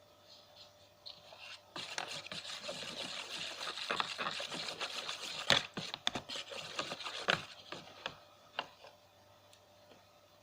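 Several seconds of rubbing and scraping, with two sharp knocks near the middle and a few lighter ticks as it dies away.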